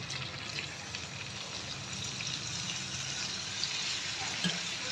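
Chicken pieces sizzling steadily in hot oil in a pan, with soy sauce just added.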